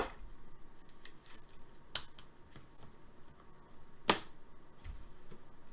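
A few sharp clicks and taps from trading cards and card holders being handled on a table, over a quiet room. The loudest click is right at the start, a fainter one comes about two seconds in, and another sharp one about four seconds in.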